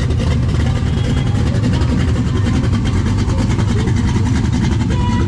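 Plymouth 'Cuda's V8 running steadily under way, a continuous low engine and exhaust drone with road noise.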